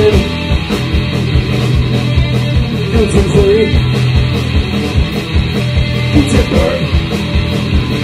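Rock band playing live: electric guitar and drum kit, with a steady drum beat.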